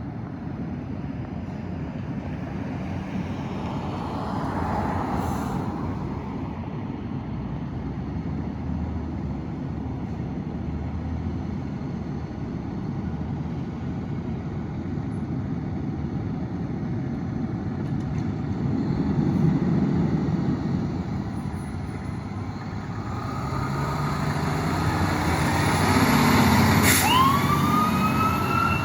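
Steady street traffic noise, with vehicles passing. In the last few seconds a fire engine approaches, its engine growing louder, and its siren winds up, rising in pitch near the end.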